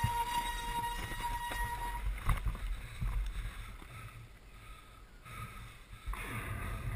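Two-stroke dirt bike engine heard from the bike itself, running at a steady pitch for about the first two seconds, then rolled off so that it quietens toward idle before picking up again near the end. A few knocks from the bike over rough ground come about two seconds in.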